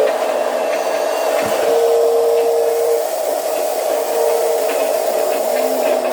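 Electric motors and gearboxes of Huina RC construction models whining steadily, with a second, slightly lower motor tone cutting in and out several times as the machines work.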